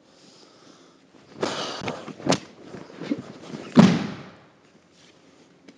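A partner thrown down onto dojo mats: uniform cloth rustling and feet scuffing, a sharp smack a little after two seconds, then a heavy thud of a body hitting the mat about four seconds in.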